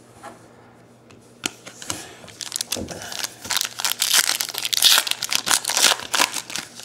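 Crinkling of a trading-card pack wrapper being torn open and handled: a sharp click about one and a half seconds in, then dense crackling that is loudest toward the end.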